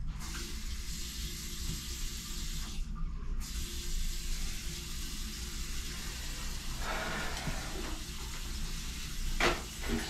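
Water running through a shower fitted with a new Moen cartridge, a steady hiss that starts suddenly when the water is turned back on, with a brief dip about three seconds in.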